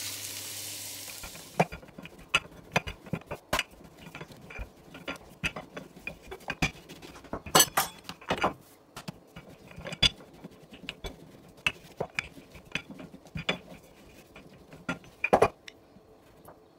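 Sizzling in a frying pan for the first second or so, then scattered irregular clicks and knocks of a wooden rolling pin working dough on a silicone mat and a metal ring cutter pressing out dough circles.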